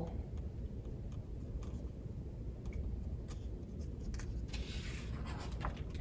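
Faint paper sounds from a hardcover picture book's page being handled, with a few light taps and a soft rustle about five seconds in as the page is turned, over a low steady room hum.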